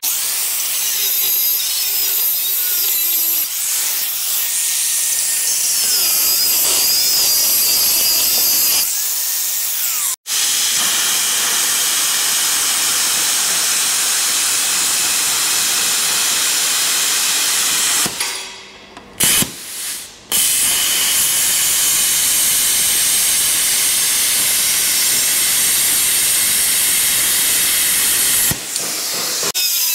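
A 4.5-inch angle grinder with a thin slitting disc cutting steel: a loud, steady, high hissing scream. It runs almost without a break, cutting out suddenly about ten seconds in and stopping briefly a couple of times around eighteen to twenty seconds.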